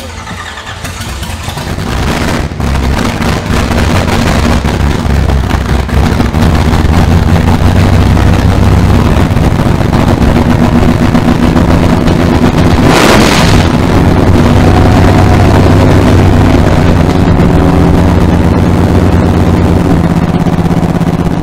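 V8 engine running in a garage, the throttle worked by hand at the carburetor. It builds up over the first few seconds, gives one short louder rush of revs about two-thirds of the way through, then settles back to a steady run.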